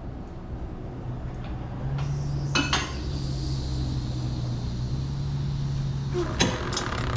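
Metal tools and parts clinking and clattering, with a steady mechanical hum and hiss through the middle.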